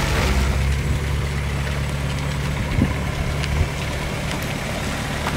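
The 1957 GAZ-21G Volga's 21B side-valve (flathead) inline four-cylinder engine idling steadily with a low, even hum. There are a couple of light knocks about halfway through.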